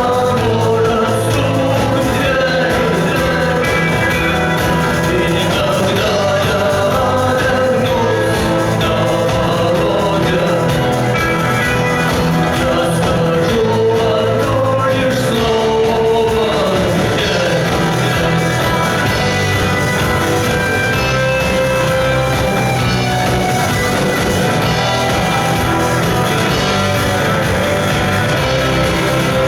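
Live rock band playing a song with sung vocals, steady and loud throughout.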